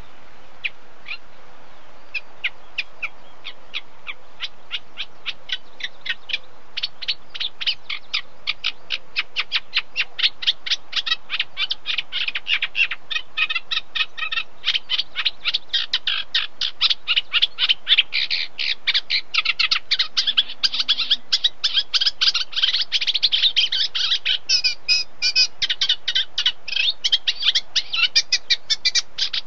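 A reed warbler singing: a long, unbroken run of rapid chattering notes that thickens and grows louder after the first several seconds, over a steady background hiss.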